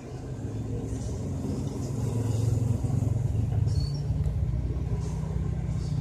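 Lite-On external slim DVD-ROM drive spinning up a loaded DVD: a low motor hum that grows louder over the first two seconds, then holds steady, with a low tone joining about four seconds in.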